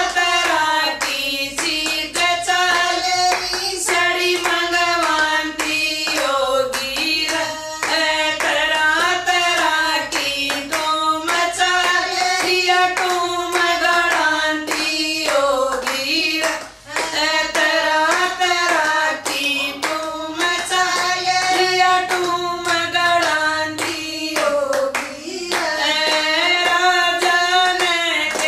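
Women singing a Haryanvi bhajan (devotional folk song) together, keeping time with a steady beat of hand claps.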